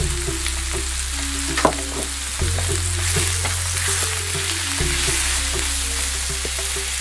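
Raw banana pieces sizzling in oil in a frying pan as they are stirred and tossed, with a spatula scraping and knocking against the pan; one sharper knock about one and a half seconds in. Soft background music with slow, steady chords underneath.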